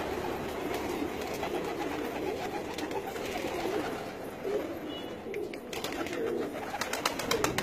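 A flock of domestic pigeons cooing together in a steady murmur, with wings flapping as some birds fly up, the flapping heard mostly in the second half.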